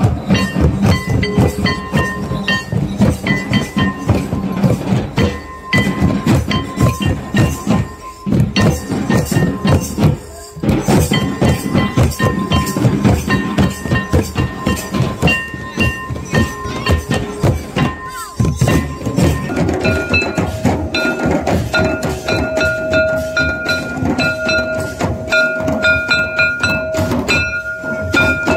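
Santali dance drumming: fast, dense strokes on a tamak kettle drum and other hand drums, with a held melody line above that grows stronger about two-thirds of the way through.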